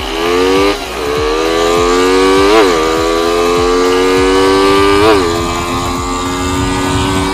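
Motorcycle engine pulling under acceleration. Its pitch climbs steadily and dips sharply for a moment at each gear shift, about three times.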